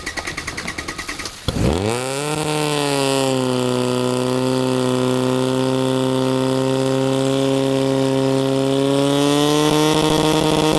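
Portable fire pump's petrol engine idling with a rapid chugging, then about one and a half seconds in opened up to full throttle, its pitch rising quickly and then holding steady at high speed while the pump drives water through the hoses.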